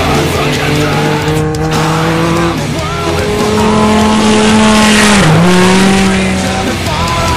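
Off-road race vehicle engine running hard at high revs, its pitch held steady and then dropping sharply about five seconds in, with rock music underneath.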